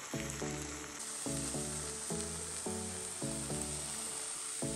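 Eggs sizzling as they scramble in a frying pan, a steady hiss. Background music with a steady beat plays over it.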